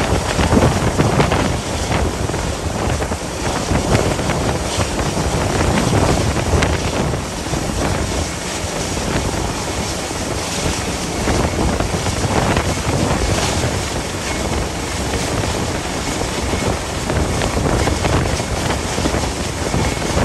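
Gale-force wind buffeting the microphone: a loud, continuous rush that rises and falls with the gusts.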